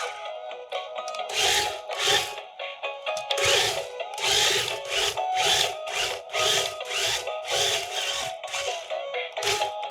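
Background music: a steady melody over a regular beat of about two strokes a second.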